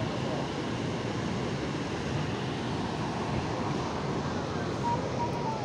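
Steady rush of water pouring down the Shushtar waterfalls, the man-made cascades of the town's historic hydraulic system.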